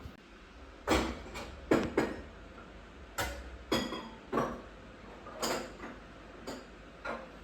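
A series of irregular sharp clicks and knocks, about nine in seven seconds, like things being handled.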